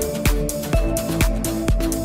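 Electronic dance music with a steady kick-drum beat, about two beats a second, under sustained synth notes.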